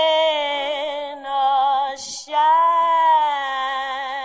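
A man singing a long, wavering held note with vibrato, a quick breath about two seconds in, then another long held note to close the song.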